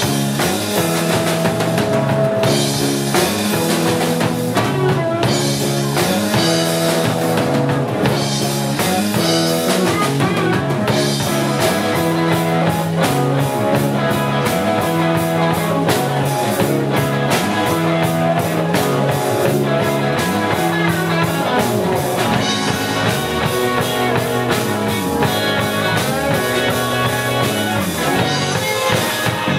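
A small rock band playing live, with a drum kit keeping a steady beat under cymbals, and acoustic and electric guitars.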